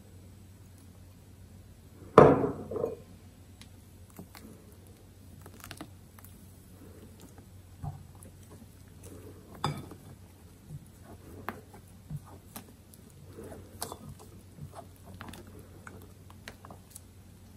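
Silicone spatula folding egg yolks into stiff whipped egg whites in a glass bowl: scattered light taps and scrapes against the glass with soft squishes of the foam, and one louder knock about two seconds in.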